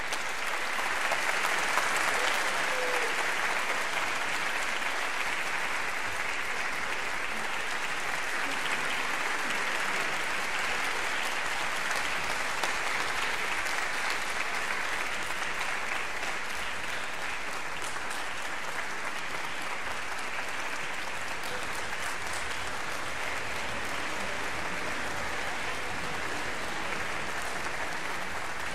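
Concert-hall audience applauding, a little louder about a second in and then steady.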